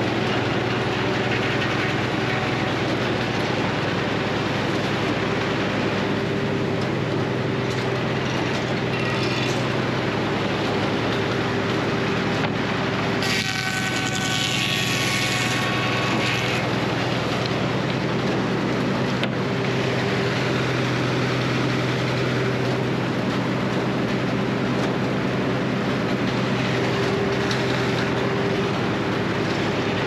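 Frick circular sawmill running while sawing poplar boards: a steady machinery hum from the mill's drive and carriage, with a brief high whine with falling tones about halfway through.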